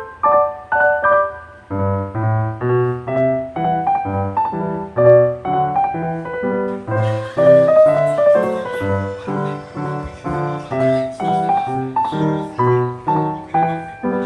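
Background piano music: a bright melody over a bass line that comes in about two seconds in, with fuller, brighter accompaniment joining about halfway through.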